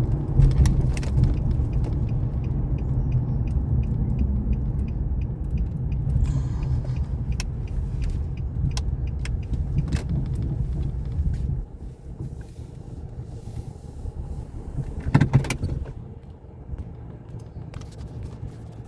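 Car running with a steady low rumble, which stops abruptly about two-thirds of the way in. Scattered clicks follow, with a short, louder clatter near the end.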